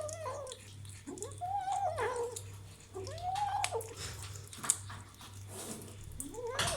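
Kitten making drawn-out, whining mews that rise and fall, about four in a row, while eating meat, with short clicks between the calls.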